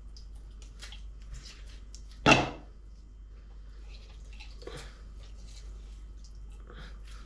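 Lemon halves squeezed by a gloved hand over a bowl of yogurt, with faint wet crackles and juice dripping into the bowl. There is one sharp knock about two seconds in.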